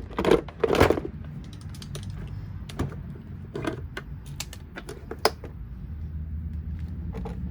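Plastic parts of a Bissell CleanView Helix vacuum cleaner's housing being handled and pried apart during disassembly: irregular clicks and knocks, with two louder scraping rustles in the first second.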